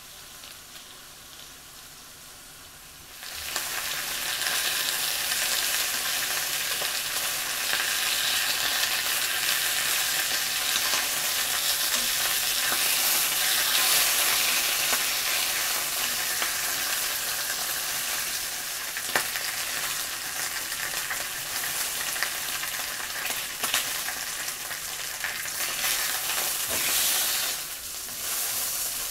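Starch-dusted pork loin slices frying in oil in a frying pan, sizzling: softly at first, then a loud, steady sizzle from about three seconds in.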